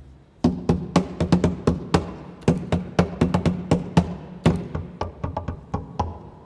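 Cello played percussively: sharp knocks on the instrument start about half a second in and go on in an uneven rhythm, some three or four a second, each with a short low ringing note from the instrument.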